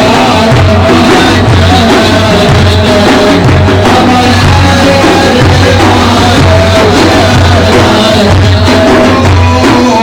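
Loud madih praise-song music with a driving drum beat and a heavy, pulsing bass under a melodic line.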